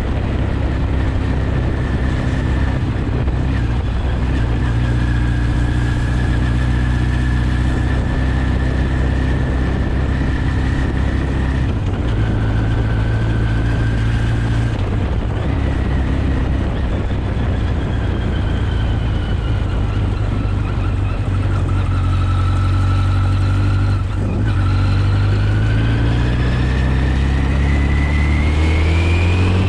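1983 Kawasaki GPZ 1100's inline-four engine running under load while the motorcycle is ridden, its pitch steady for stretches and shifting at gear changes, dipping, then climbing steadily near the end as it accelerates.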